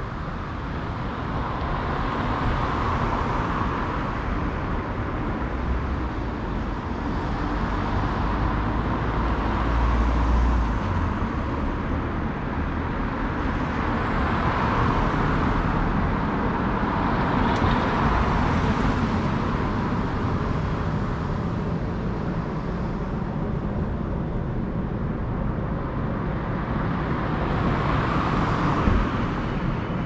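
Road traffic: cars passing one after another, tyre and engine noise swelling and fading every few seconds over a continuous traffic hum. A deeper rumble comes through about six to eleven seconds in.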